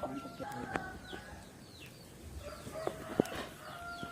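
Chickens clucking and cheeping in short falling calls, with a few sharp knocks, the loudest about three seconds in.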